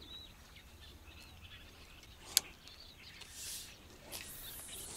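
Faint birds chirping in the background, with a single sharp click about two and a half seconds in and brief hissing rustles near the end.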